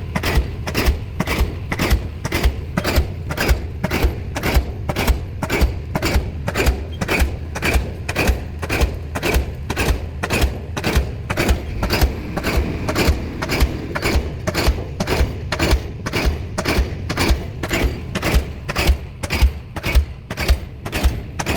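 Diesel pile hammer driving a pile: a steady, even run of sharp blows, about two a second.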